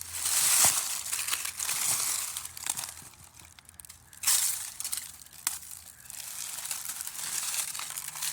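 Uneven crunching and crackling of dry leaves and brush underfoot, in irregular surges, loudest about half a second in and again just after four seconds.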